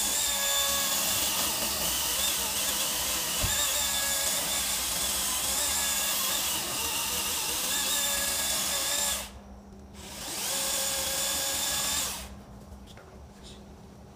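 Chainsaw running steadily as it cuts low on a small tree, with a wavering motor whine. It drops out briefly about nine seconds in, picks up again, then stops about twelve seconds in.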